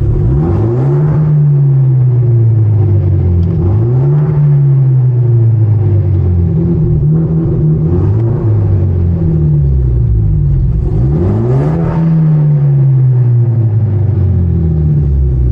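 Hyundai Genesis Coupe 2.0T's turbocharged four-cylinder engine pulling away. Its pitch rises quickly and then falls away slowly, several times over.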